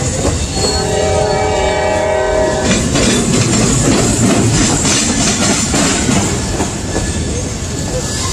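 Freight train of autorack cars rolling past, with a steady rumble and wheel clatter. About half a second in, a train horn sounds a steady chord for about two seconds, over the noise of the passing cars.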